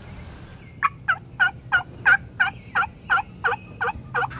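Turkey yelping: a long, evenly spaced series of about a dozen loud yelps, roughly three a second, each note breaking downward in pitch. It starts just under a second in.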